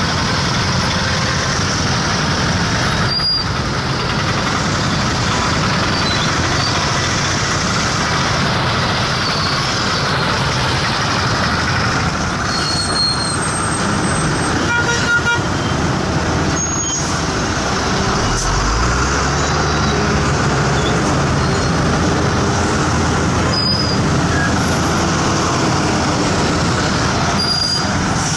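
Dense road traffic in a jam: motorbike, auto-rickshaw, bus and truck engines running together as a steady din, with short horn toots here and there. A deeper heavy engine rumble comes in about two-thirds of the way through.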